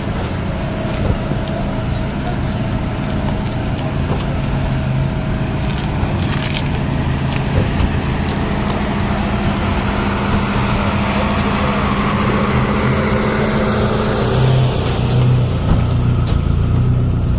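A car engine running steadily with a constant low hum, over general outdoor noise.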